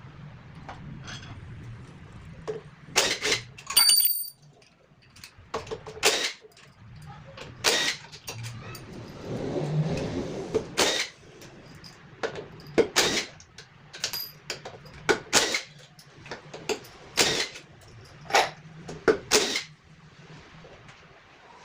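Tools and metal engine parts clinking and knocking as a Yamaha Mio Sporty scooter engine is taken apart: about a dozen irregular sharp strikes. One clink, about four seconds in, rings briefly.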